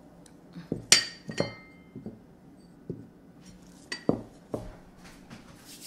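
Ceramic plates being handled and set down among glass bowls: a series of sharp clinks and knocks, the loudest about a second in, several with a brief ringing tail.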